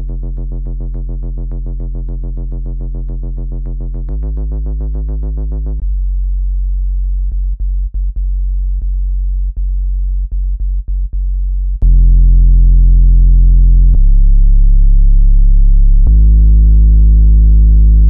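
Synthesized low-pitched buzzing tones, each held steady and then stepping to a new pitch every few seconds, with a run of short clicks and dropouts in the middle and a jump to a louder tone a little past halfway. This is a speaker water-ejection sound: low tones meant to vibrate a laptop speaker and push out spilled water.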